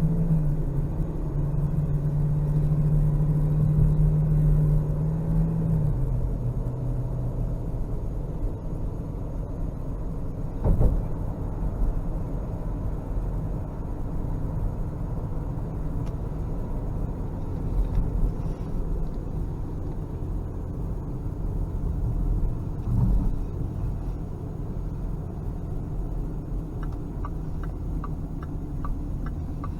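Car driving: a steady low rumble of engine and road noise, with a strong low hum that fades about six seconds in, and a quick run of light ticks near the end.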